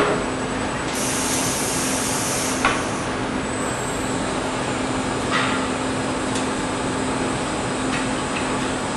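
Steady running noise and low hum of a PRINZ PC120 automatic lumber-package cross-cutting line as a stacked timber package is fed along its roller conveyor. A hiss like compressed air starts about a second in and lasts under two seconds. A few short wooden knocks come after it.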